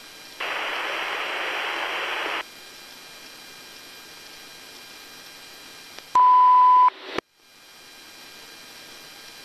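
Police radio channel hissing, with a two-second burst of open-channel static about half a second in. About six seconds in comes a loud, steady single-tone beep lasting under a second, followed by a click.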